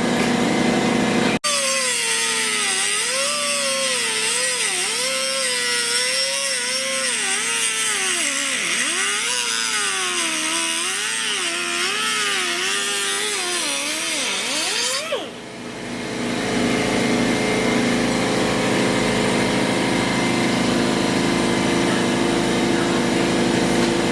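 An engine revved up and down unevenly for about thirteen seconds, ending in a quick rise in pitch before it cuts off. Then comes a steady running engine sound.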